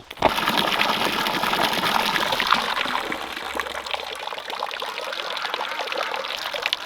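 Water gushing from a hose, starting suddenly just after the start and running steadily, a little softer in the second half.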